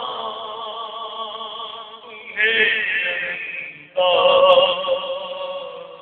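A man chanting a marsiya, the Urdu elegy recited in Shia mourning gatherings, in long held melodic lines. A new phrase begins about two seconds in and another about four seconds in.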